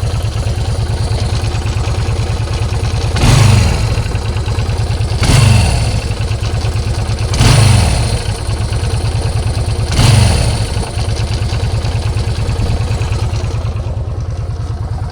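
Lifan LF250B motorcycle engine idling, with the throttle blipped four times at about two-second intervals. Each blip briefly brings a rise in loudness, and the revs then fall back to idle. The engine has the knock its owner is chasing.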